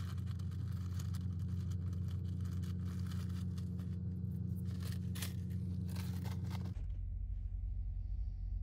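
Small plastic toy gearbox parts being handled and worked by hand: scattered clicks and scrapes over a steady low electrical hum. Near the end the clicking stops abruptly and the hum shifts lower.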